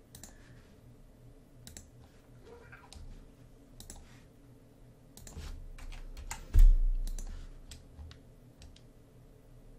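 Scattered clicks of a computer mouse and keyboard, with one dull, low thump about six and a half seconds in, the loudest sound.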